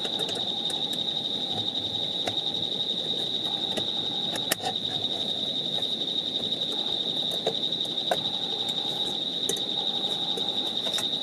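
Crickets trilling in a steady, unbroken high-pitched chorus over a low, even rushing noise. Scattered sharp clicks come through, the loudest about four and a half seconds in.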